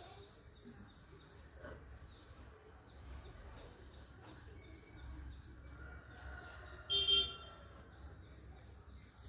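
Small birds chirping again and again over a steady background hum. About seven seconds in there is one brief, loud, high-pitched call or toot, the loudest sound here.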